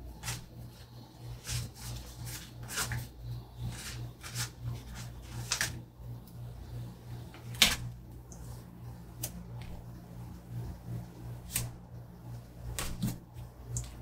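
Scattered light clicks and crinkles of glossy planner sticker sheets and backing paper being handled on a desk, over a faint steady low hum.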